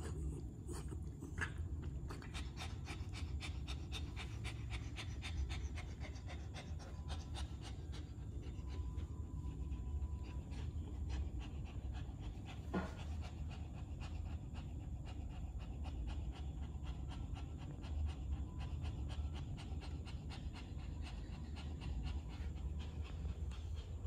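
Sick mother dog panting in quick, even breaths.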